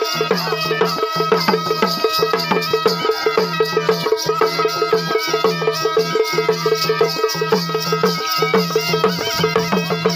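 Traditional folk music: a pipe melody over fast, steady beats on two-headed hand drums, with a low held note that breaks off about once a second.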